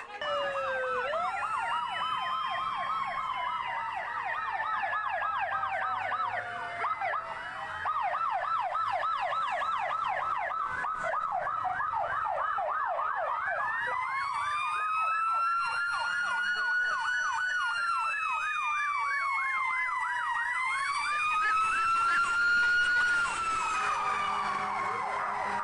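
Several fire truck electronic sirens sounding at once and overlapping: a fast warbling yelp alongside slow rising and falling wails.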